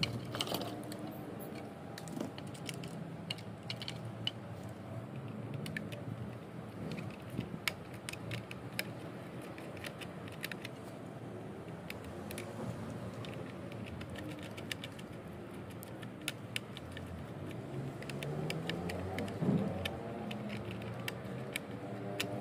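Irregular small metal clicks and taps of a screwdriver and hand tools working on the wire terminals inside a water pump's electronic pressure controller.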